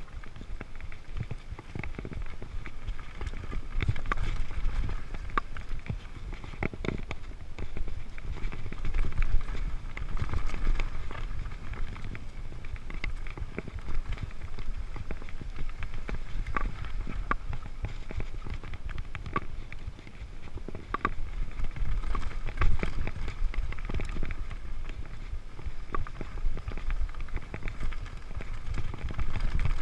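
Mountain bike rolling over a dirt singletrack: tyre noise and the bike rattling, with many short clicks and knocks as it goes over bumps, over a low wind rumble on the microphone.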